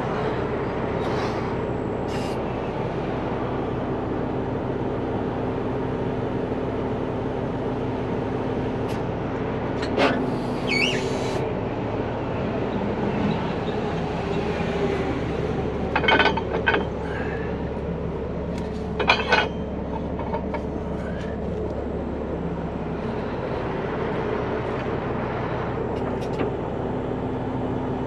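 Heavy wrecker's diesel engine running steadily to drive its hydraulics while the underlift control levers are worked. A steady whine comes in for several seconds from about four seconds in and again near the end, and a few sharp metallic clanks sound around the middle.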